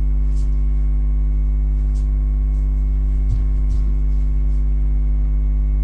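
Steady electrical mains hum with a stack of overtones, picked up by a webcam microphone. Two faint soft thuds of bare feet on a laminate floor come through a little past the middle.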